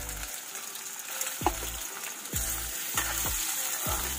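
Small whole potatoes sizzling in hot oil in a stainless steel pan, a steady hiss, while a metal spoon stirs them, scraping and knocking against the pan about six times.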